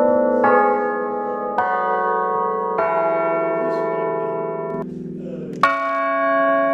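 Bronze church bells standing mouth-up on the floor, struck one after another with a hand-held ball-headed striker. There are four strikes, each on a different note, and each bell rings on with a long hum and overtones under the next.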